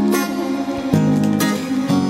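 Instrumental backing track opening a song, sustained chords changing about once a second, with no singing yet.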